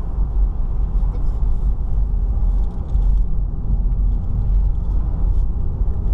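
Steady low rumble of a 2018 Kia Forte S sedan driving at road speed, heard from inside the cabin: tyre, road and engine noise.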